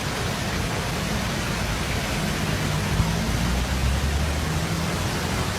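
Ravana Falls in flood: a heavy volume of water pouring down, heard as a steady, dense rush with a low rumble underneath.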